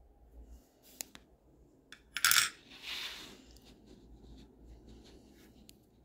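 A few light metal clicks, then about two seconds in a sharp metallic clink with a short ringing tail: the watch movement's freshly removed bridge and steel tweezers being set down on a hard surface.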